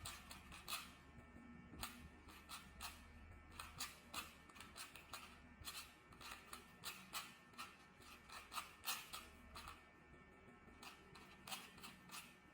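A plastic 4x4 Rubik's cube being turned by hand: quick, irregular clicks and clacks as the layers are twisted, a few a second.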